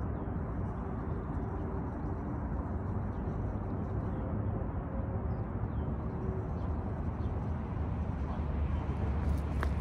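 Steady outdoor background: wind rumbling on the microphone over a faint, steady hum of distant engines.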